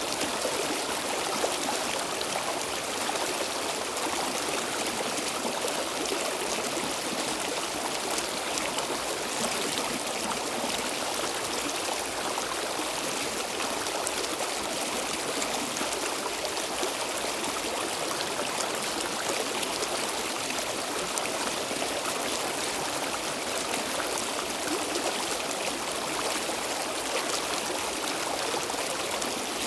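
Stream water flowing steadily, a continuous splashing rush with no breaks.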